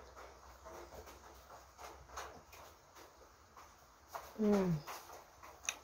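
Close-up eating sounds: soft chewing and wet mouth clicks while chewing fries with her mouth closed. About four seconds in there is a short hummed 'mmm' that falls in pitch, the loudest sound, and a sharp click comes just before the end.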